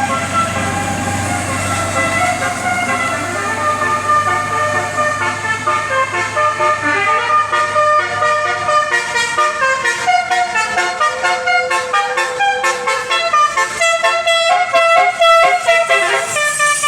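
Multi-tone 'basuri' telolet bus horn playing a melody in stepped notes, quicker and choppier in the second half. A low rumble runs under it and stops about halfway through.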